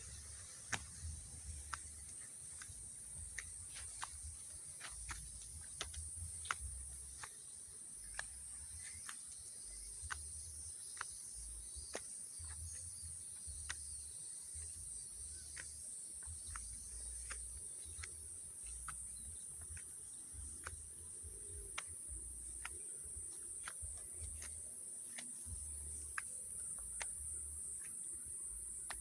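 Insects chirring in a steady high-pitched drone, with scattered sharp clicks and an on-and-off low rumble.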